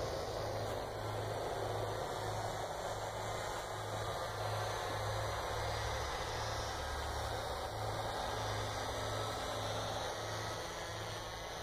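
Distant drone of a radio-controlled model biplane's motor and propeller overhead, faint and drifting slowly in pitch, under a steady hiss and low buffeting of wind on the microphone.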